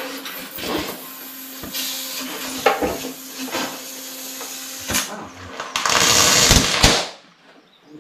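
Gas welding torch hissing steadily with a low hum under it and a few clanks of metal, the rush growing louder for a second near the end and then cutting off sharply as the gas is shut off.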